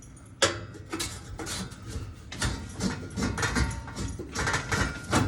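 Irregular metallic clicks and clattering of screws being taken out of a gas oven's sheet-metal heat shield, with a sharp click about half a second in.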